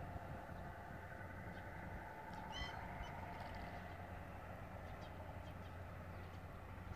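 Quiet countryside ambience: a steady low background rumble with a few scattered short bird chirps and one brief pitched bird call about two and a half seconds in.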